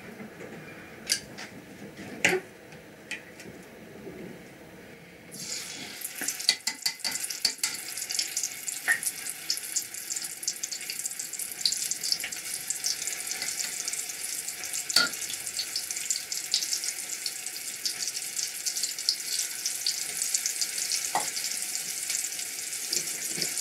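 Rice paper wraps with mushroom filling deep-frying in a pan of hot oil. After a few clicks, a crackling sizzle starts suddenly about five seconds in and keeps on steadily, dotted with small pops and ticks.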